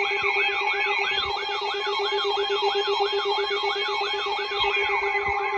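Electronic emergency alert siren tone: a sweep that rises and falls about three times a second over several steady held tones, played between emergency alert broadcasts.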